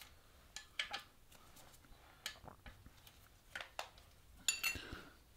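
Faint metal clicks and taps of a 16mm ring spanner on the screws of a steel sump guard as they are undone, in three short clusters, the loudest near the end.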